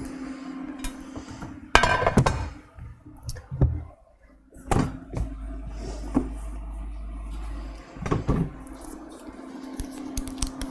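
Kitchen handling sounds: irregular knocks, thunks and clinks of containers and utensils, with the loudest knocks about two, five and eight seconds in, over a steady low hum.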